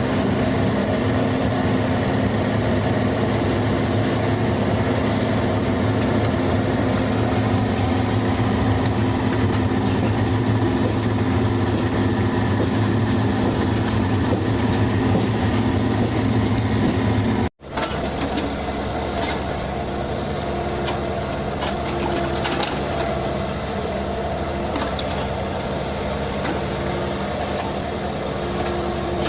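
Kobelco SK50P mini excavator's diesel engine running steadily. About 17 seconds in the sound drops out for an instant and comes back a little quieter, with scattered clicks and knocks over the engine.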